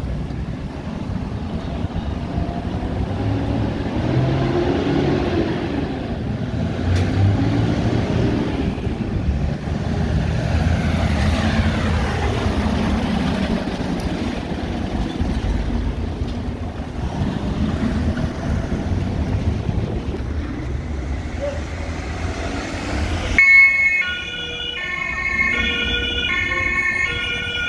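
Fire engines driving by on a cobbled street, their diesel engines and tyres rumbling, louder and softer as they pass. About 23 seconds in, the sound cuts abruptly to a two-tone emergency siren stepping back and forth between two pitches.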